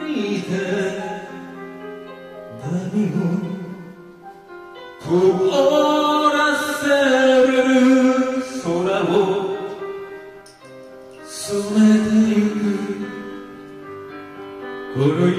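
A man singing a slow Japanese ballad into a microphone over a piano accompaniment, in long held phrases with short breaks between them.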